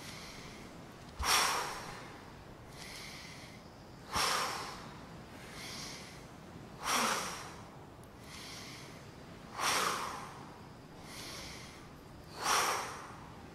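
A small group breathing forcefully in unison in a qigong exercise: a sharp exhale thrown out about every three seconds, five times, each followed by a softer inhale.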